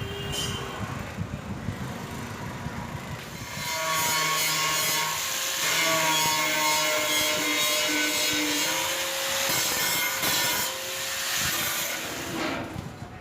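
Steady harsh scraping, like sawing or rasping, starting about three and a half seconds in and stopping near the end, with squealing tones that shift in pitch.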